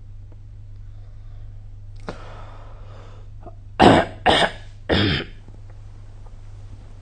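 A person coughing three times in quick succession, over a steady low hum, with a softer breathy sound a second or two before the coughs.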